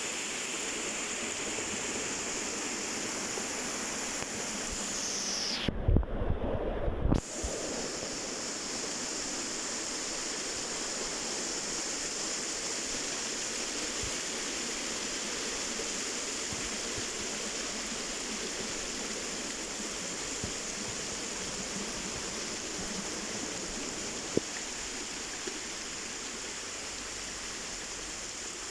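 Waterfall rushing: a steady noise of falling water, with a brief rumble and a few knocks about six seconds in.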